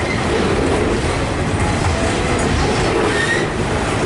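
Broad gauge freight train wagons rolling past: a steady, loud rumble of steel wheels on the rails, with a brief high wheel squeal about three seconds in.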